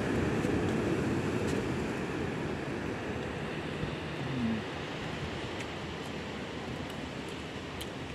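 Steady rush of sea surf and wind on the microphone, with a few faint ticks.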